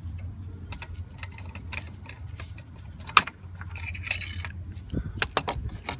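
Metal clicks and clinks of a ratchet and spark plug socket unscrewing a spark plug from a BMW N52 engine's plug well, irregular and in short runs, over a steady low hum.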